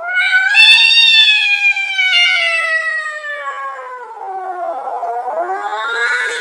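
Angry cat yowling: one long, drawn-out caterwaul that rises at the start and then slowly falls in pitch. It dips about five seconds in and climbs again just before it stops.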